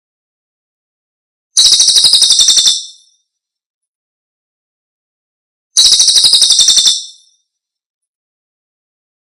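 Recorded call of a celilin (cililin) bird, a rapid high-pitched trill about a second long, played twice about four seconds apart with silence between, as a looped lure and master track.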